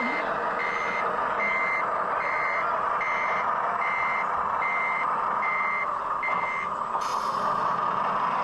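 Reversing beeper of a scale RC truck's sound unit, a steady high beep about one and a half times a second that stops near the end, over a steady mechanical whir. A short hiss follows just after the beeping stops.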